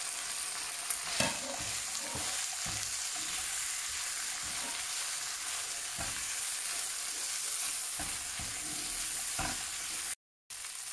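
Steady sizzling of fried anchovies tossed with onion, tomato and capsicum in a hot nonstick frying pan, with a few knocks and scrapes of the utensil against the pan as it is stirred. The sound cuts out for a moment near the end.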